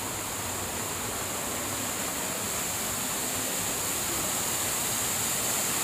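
Small jungle waterfall pouring into a rock pool: a steady rush of falling water that grows slightly louder as it is approached.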